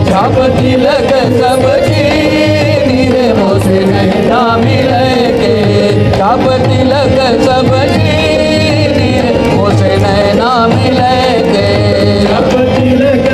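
Live devotional bhajan music: harmonium and electronic keyboards carry the melody over a steady dholak and tabla rhythm, with voices singing.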